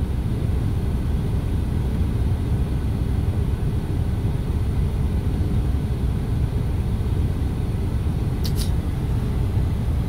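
Steady low rumble inside a car cabin: the engine idling. A brief sharp click about eight and a half seconds in.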